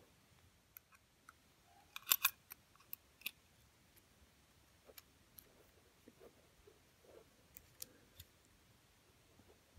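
Faint clicks and light knocks of clarinet parts being handled and fitted together, with a cluster of sharp clicks about two seconds in.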